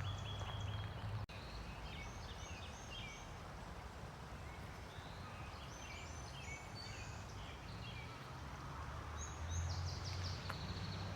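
A songbird singing in three bouts of quick, high chirped notes, over a low steady rumble.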